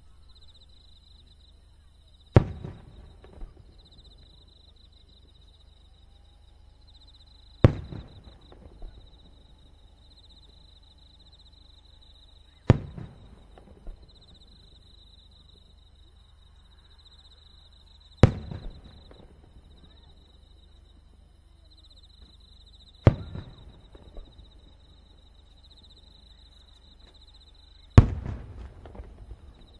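Aerial firework shells bursting one at a time, six sharp bangs about five seconds apart. Each bang trails off in an echoing rumble, with a softer pop about a second after it.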